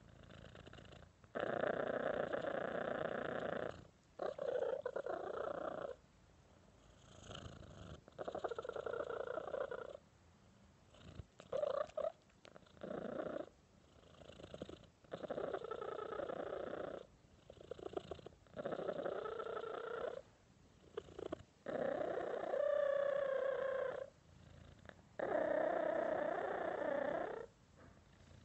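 Domestic cat purring close to the microphone, in repeated stretches of a second or two broken by short pauses as it breathes in and out.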